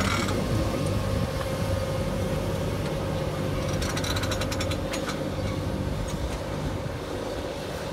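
John Deere tractor working under load, pulling a Sumo Trio subsoiling cultivator whose legs, discs and packer roller break up very compact ground: a steady machine hum with a held tone, and a cluster of clicks about four seconds in.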